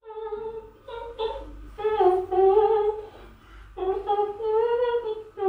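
A voice humming a wordless tune in short phrases of held notes, with a pause about three seconds in.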